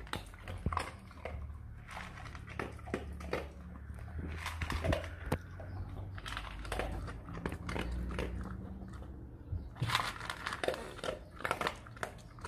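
A dog eating dry kibble: irregular crunching and chewing with short pauses, and a cluster of louder crunches near the end.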